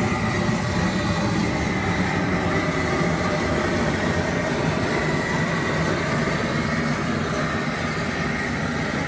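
Propane burner under a single-sack crawfish boiler firing, a steady even rushing sound that sits mostly low in pitch.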